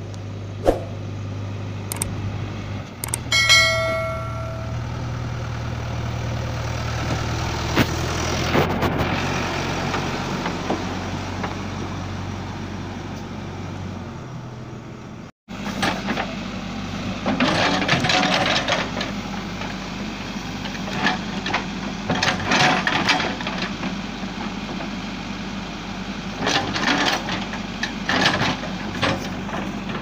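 JCB 3DX backhoe loader's diesel engine running steadily as the machine drives, with a short horn blast about three and a half seconds in. About halfway through, the engine is working under load as the backhoe bucket digs and dumps soil, with irregular bursts of noise over the steady hum.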